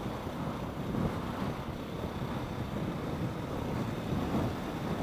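KTM 690 single-cylinder motorcycle engine running steadily at low speed, mixed with wind rumbling on the microphone.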